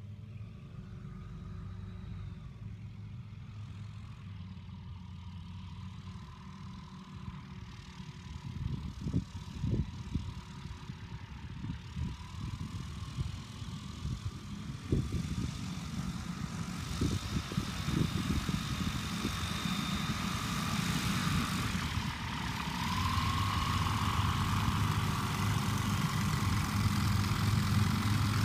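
Platzer Kiebitz homebuilt biplane's piston engine and propeller running at low, idle-like power while taxiing, the steady hum growing louder as the plane comes closer. Scattered thumps midway.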